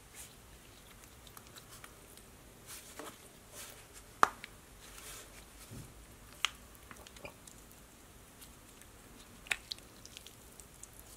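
Thick, dough-like marshmallow slime being stretched and squeezed by hand: faint sticky squishing with a few short sharp clicks and pops, the loudest about four seconds in.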